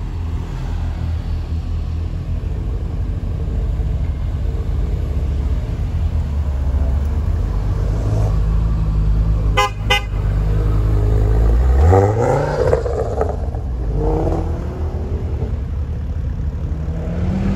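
Ford Focus hot hatches pulling away, their engines rumbling steadily, with a car horn tooting twice in quick succession partway through. One engine revs up about two seconds after the toots.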